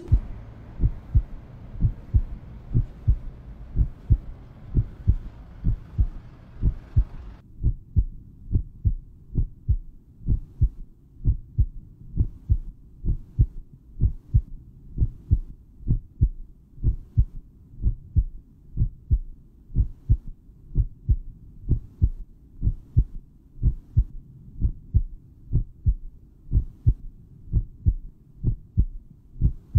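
Heartbeat sound effect: an even, steady pulse of low thumps. A faint background hiss under it cuts off about seven seconds in.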